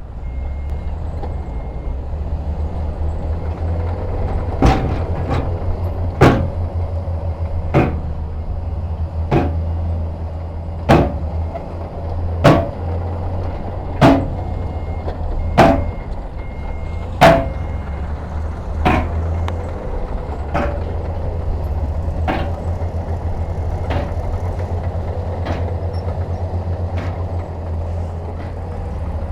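Heavy diesel truck engine running steadily, with reversing beeps in the first second or so. About 5 s in, a run of sharp metallic bangs starts, one roughly every second and a half, about fifteen in all, growing fainter in the last third.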